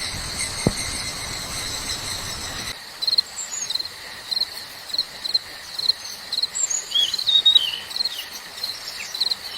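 Insects chirping: a steady high buzz for the first few seconds, then, after an abrupt change, short regular chirps about twice a second. A bird calls several times in the second half.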